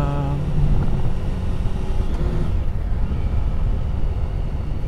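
Triumph Tiger 1050's inline three-cylinder engine running steadily while riding, under a continuous low rumble of road and wind noise.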